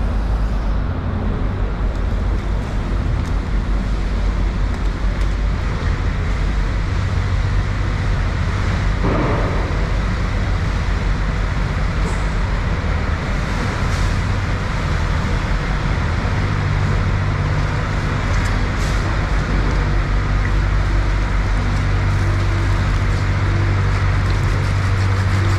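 Steady mechanical rumble with a low motor hum under constant background noise; the hum grows stronger about two-thirds of the way through.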